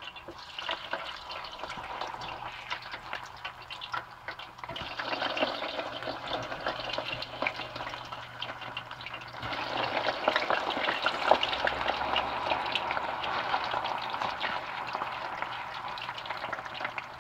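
Thin plantain slices deep-frying in hot oil: a steady sizzle full of small crackles. It grows louder about five seconds in and again near ten seconds.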